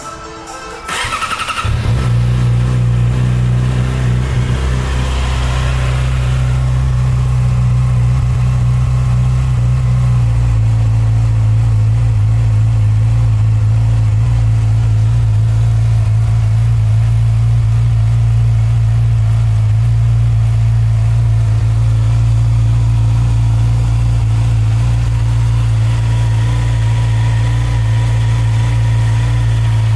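The 2020 Yamaha YZF-R6's inline-four engine cranking and starting cold about a second in, then running at a steady fast idle. The idle settles slightly lower around ten seconds in.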